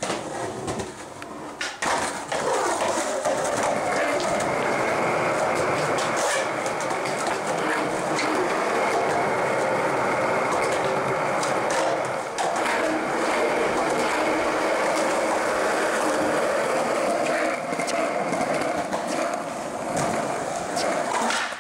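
Skateboard wheels rolling on smooth concrete, a steady rumble that settles in after the first couple of seconds, with a few sharp clacks of the board along the way.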